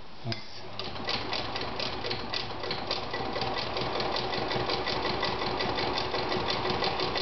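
Veritas 8016/22 electric sewing machine starting up about half a second in and then running steadily, sewing a fine, short-stitch zigzag through fabric. A motor hum lies under a rapid, even ticking of stitches, about five a second.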